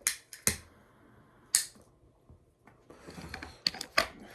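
A few short, sharp clicks spread through the first second and a half, then a soft hiss with several more clicks close together near the end.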